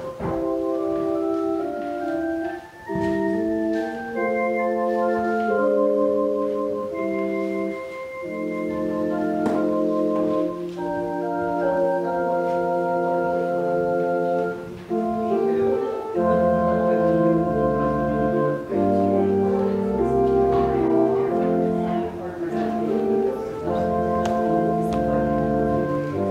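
Organ playing a slow piece in held, unfading chords, with low bass notes joining about halfway through.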